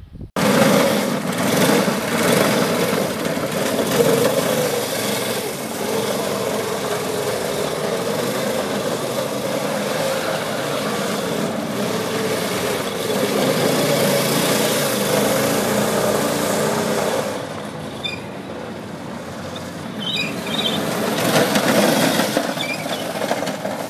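Small gasoline engine of a homemade mini semi truck running while the truck is driven. It drops back for a couple of seconds about three-quarters of the way through, then picks up again.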